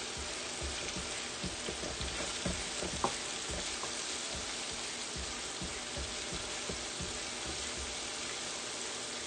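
Minced garlic and red pepper flakes sizzling in olive oil in a shallow metal pan, with a spatula stirring and scraping across the pan bottom and a few light knocks in the first few seconds.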